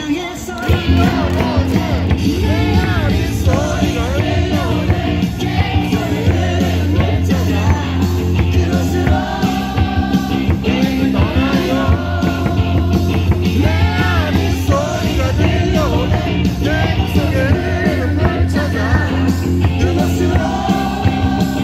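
Rock-style cheer song playing loud over a baseball stadium's loudspeakers, with a steady beat and singing throughout.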